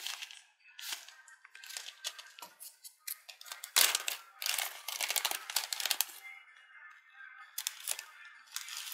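Thin plastic bag crinkling and rustling as it is opened and handled, loudest just before the middle and for a couple of seconds after, with scattered small clicks. The bag holds dried gammarus being shaken out into an enamel bowl.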